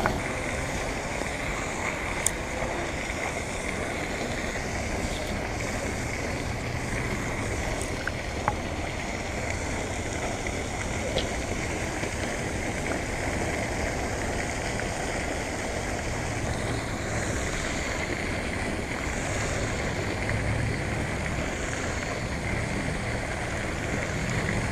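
Steady wind noise buffeting the camera's built-in microphone, with two faint ticks early on.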